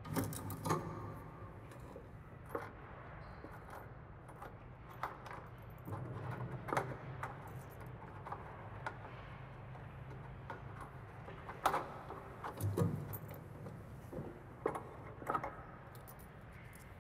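Scattered small clicks and knocks of objects being handled, irregularly spaced and echoing in a stone church, over a faint low hum.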